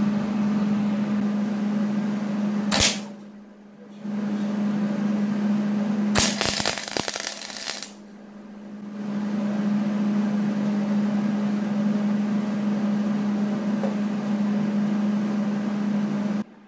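Electric arc welder running with a steady hum and hiss, cutting out briefly a few times, with a spell of louder arc crackle about six to eight seconds in while tacking steel shock mounts.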